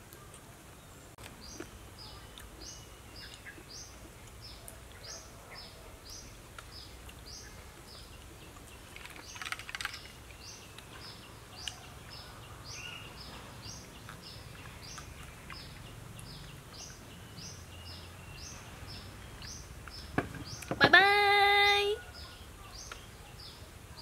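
A bird chirping over and over, short high chirps about two a second, over steady outdoor background noise. Near the end comes a loud, drawn-out call that holds one pitch for about a second and a half.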